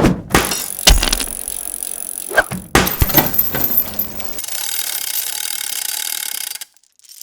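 Layered stop-motion sound effects for bicycle parts being assembled: quick clicks, knocks and swishes, then a steady whir from about four and a half seconds that cuts off suddenly near the end.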